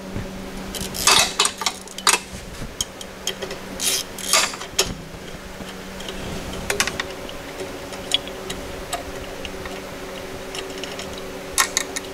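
A socket wrench working a 10 mm bolt loose, with clicking and metal clinks in a few short bursts over a steady low hum.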